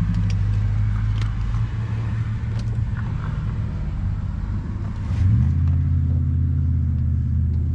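A motor vehicle engine idling with a steady low hum, stepping up in level about five seconds in. A few faint clicks sound over it.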